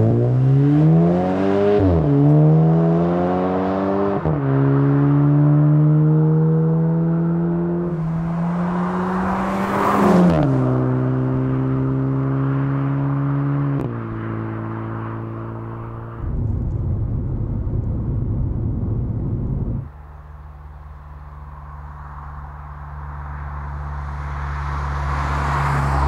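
Volkswagen Mk8 GTI's turbocharged 2.0-litre four-cylinder through a titanium cat-back exhaust, accelerating hard with the pitch climbing and dropping at each upshift, three shifts in the first ten seconds, then holding a steady note. Past the middle comes a few seconds of rough, noisy rumble, then a steady low exhaust drone that swells in loudness toward the end.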